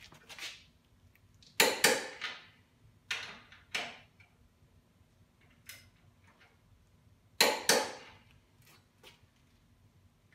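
Sharp metallic clacks and knocks of a wrench working on a Mustang II independent front suspension. There are two loud pairs of strikes, about two seconds in and near eight seconds, with single knocks between them and a few faint clicks near the end.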